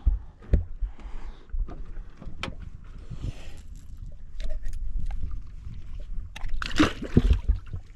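Scattered knocks, clicks and rustling of hands working in a fishing boat while a channel catfish is unhooked, over a steady low rumble. A louder rush of noise with several thumps comes near the end.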